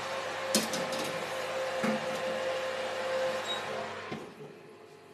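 Oven running with a steady whir and hum, with a couple of knocks as the baking tray goes in; the whir cuts off about four seconds in.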